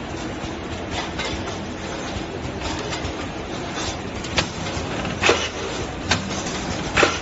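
Automatic metal can seaming machine running steadily, with sharp metallic clanks coming about once a second in the second half as cans pass through.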